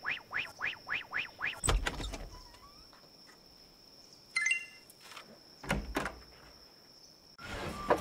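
A quick run of short swooping tones, about four a second, followed by two dull thuds, one about two seconds in and one near six seconds, with a brief chirp between them.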